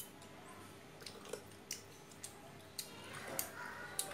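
Metal forks clicking and scraping against grilled scallop shells as the meat is picked out: a scatter of light, sharp clicks, the loudest a little past three seconds in, with soft chewing.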